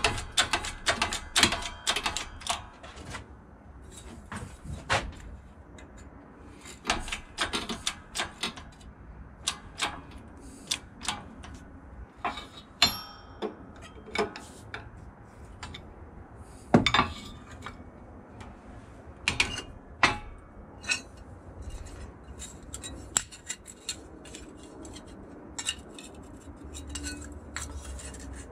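Irregular metallic clinks and knocks of steel pieces being handled and set down on a shop hydraulic press, the loudest about 17 seconds in, over a steady low hum.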